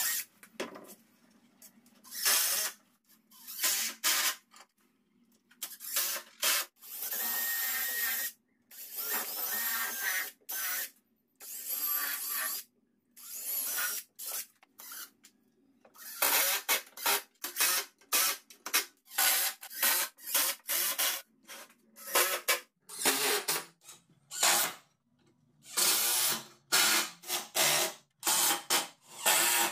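Cordless Makita drill-driver and impact driver drilling and driving screws into pine boards. It runs in a string of short bursts with pauses between them; the bursts come quicker and shorter in the second half.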